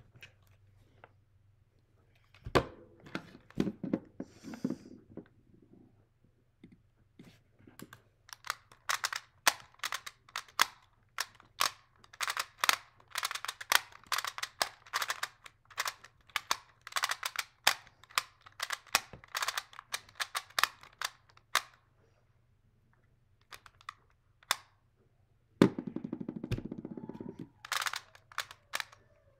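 Rubik's Clock being solved by hand: quick runs of sharp clicks from its dials being spun and its pins being pushed, with short pauses between runs. The clicking is densest through the middle and picks up again near the end, with a brief rustle of handling just before.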